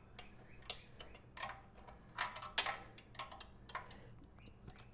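Scattered light clicks and knocks of hand tools and metal parts being worked on a motorcycle's exhaust mounting, over a faint steady low hum.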